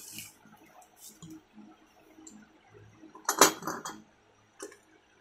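Brass water-pump impellers clinking against one another as a bundle of them is handled and one is slid off, with scattered light clinks and a louder clatter about three and a half seconds in.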